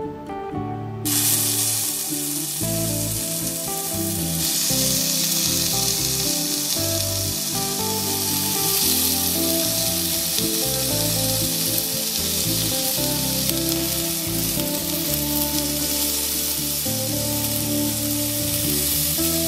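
Raw marinated chicken skewers sizzling on a hot cast-iron grill pan. The sizzle starts about a second in and grows louder a few seconds later, over quiet background music.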